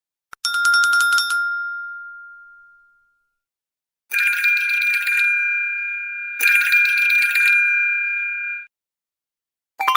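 MigeMax Ck24 phone's built-in ringtones: a single bell-like ding that rings out and fades, then two bell-like telephone rings about a second long each, the second held on and cut off suddenly. A different ringtone begins near the end.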